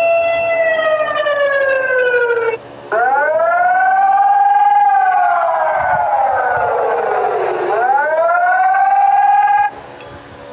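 Emergency-alert-style siren alarm tone wailing: it holds a pitch, slides down, breaks off briefly about two and a half seconds in, then swoops back up, holds, slides down and rises again before cutting off near the end.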